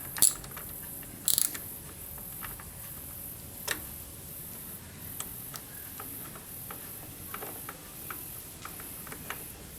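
Light metallic clicks and ticks at irregular intervals, with a small cluster of louder clicks about a second in, from hand tools working on the mounting bolts of a motorcycle rear brake master cylinder.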